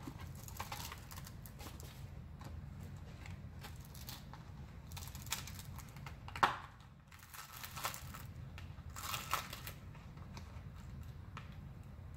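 Thin clear plastic mold crinkling and crackling as a hardened crystal-bead shape is pressed and peeled out of it, with a few sharp clicks, the loudest about six and a half seconds in.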